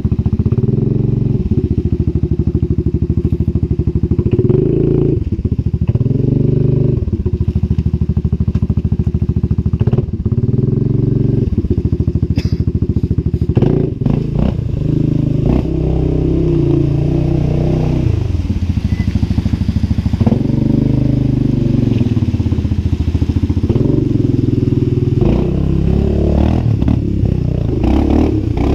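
Yamaha Grizzly 700 ATV's single-cylinder four-stroke engine running at low revs as it crawls up a rocky stream bed, the revs rising and falling now and then. Water splashes around the wheels, with a few sharp knocks from the machine on the rocks.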